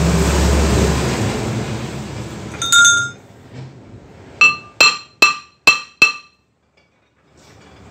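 Cast-iron brake rotor of a Toyota Fortuner, clamped in a lathe's four-jaw chuck, struck with a hammer to centre its face: one ringing strike about three seconds in, then five quick ringing taps over the next two seconds, each a short clear metallic ring of the disc. A loud rushing noise fills the first two and a half seconds before the strikes.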